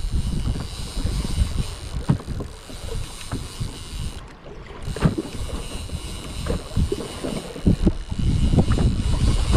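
Wind rumbling on the microphone and water moving around a small fishing boat at sea, with irregular knocks. It grows louder about two thirds of the way through.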